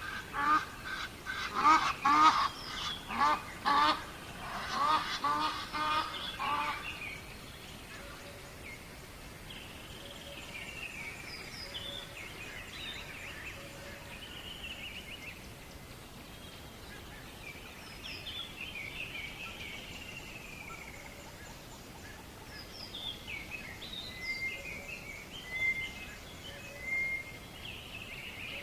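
Birds calling: for about the first seven seconds a loud, rapidly repeated call, then softer high chirps and short song phrases from smaller birds over a faint steady hiss.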